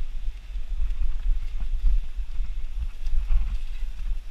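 Mountain bike riding down a dirt singletrack, heard from a helmet-mounted camera: wind buffets the microphone with a heavy, uneven rumble, while the tyres hiss over leaf-strewn dirt and the bike rattles and knocks over bumps in the trail.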